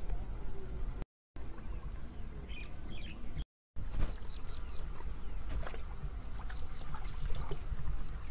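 Insects trilling in one steady, high-pitched, fast-pulsing line over a low rumble. The sound cuts out briefly twice in the first four seconds. From about four seconds in, light scattered clicks come through.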